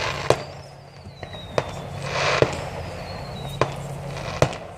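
Fireworks going off: about six sharp bangs spread across the few seconds, with a hissing crackle near the middle. Two thin whistles glide down in pitch between the bangs.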